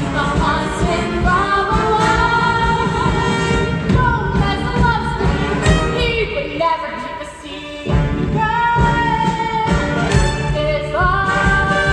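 Stage-musical number: a woman singing a show tune over full accompaniment, with a brief lull about seven seconds in.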